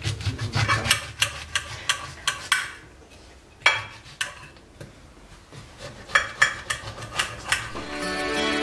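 A kitchen knife clicking and tapping against a plate as oranges are cut, in quick runs of sharp strokes with a single louder knock just past the middle. Plucked guitar music comes in near the end.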